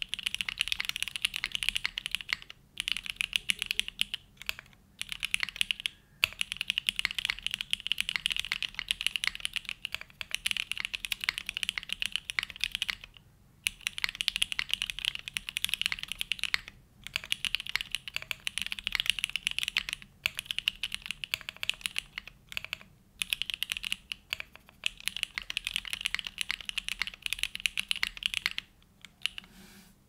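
Typing on a Vertex Arc60 60% mechanical keyboard, built plateless with no foam, with hand-lubed Gateron Oil King linear switches and GMK Bento R2 keycaps. Dense runs of keystrokes are broken by brief pauses, and the typing stops near the end.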